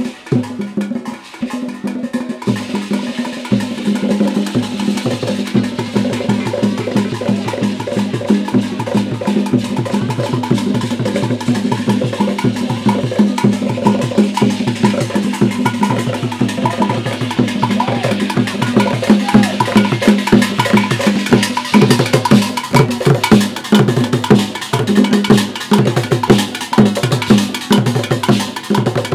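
Percussion music: drums with a clicking, wood-block-like pattern keeping a fast, steady beat, building up over the first couple of seconds.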